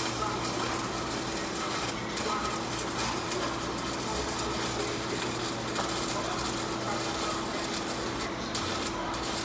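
Electric arc welding on a steel dump truck bed: the arc gives a steady crackling sizzle that does not break, with a low steady hum beneath it.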